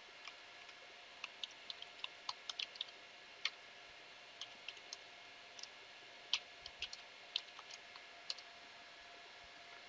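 Faint computer keyboard keystrokes as a web address is typed, in two short runs of irregular clicks over a steady low hiss.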